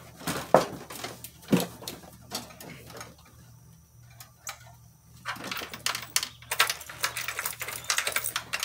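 A Cub Cadet riding tractor with an Onan Elite 140 engine fails to start: the engine doesn't crank at all. There are only scattered knocks, then a run of rapid clicking from about five seconds in as the key is worked. The tractor's electrics are completely dead from a flat battery.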